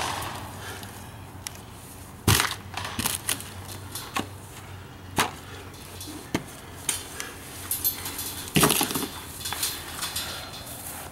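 Boards and other junk props being thrown down and knocking together: a string of sharp wooden knocks about a second apart, the loudest two near the start and a longer crash about eight and a half seconds in.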